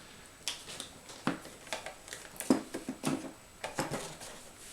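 Handling noise: a string of irregular short clicks and knocks, some with a brief dull ring, as kit parts and packaging are moved about.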